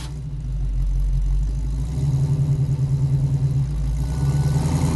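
Intro soundtrack: a deep, rumbling, engine-like drone with a fast flutter, starting abruptly and getting louder about two seconds in.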